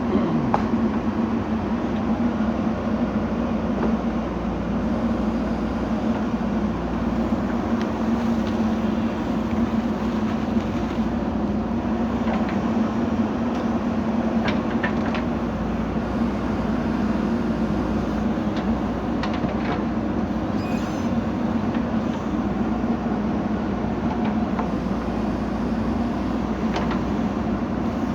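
JCB 3DX backhoe loader's diesel engine running steadily under work, with a few faint clanks scattered through.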